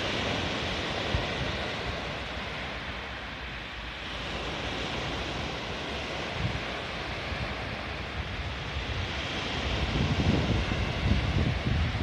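Small sea waves breaking and washing up a pebble beach: a steady surf hiss that swells and eases every few seconds. From about ten seconds in, wind buffets the microphone.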